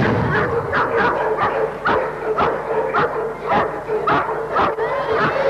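Dog barking repeatedly in a fast, even series, about three barks a second.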